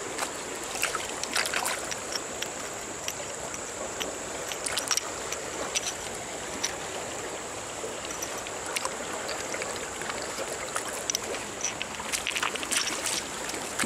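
Muddy, flood-swollen stream flowing with a steady rush, with scattered small clicks and taps from shells and stones being handled.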